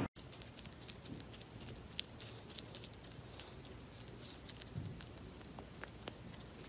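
Common marmoset chewing and biting soft food close to the microphone: faint, irregular wet clicks and smacks.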